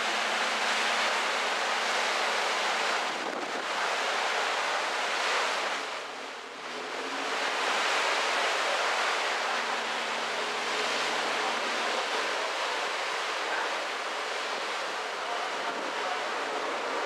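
Steady rush of wind and sea on the open deck of a moving cruise ship, with wind buffeting the microphone and a faint low hum underneath. It eases briefly about six seconds in.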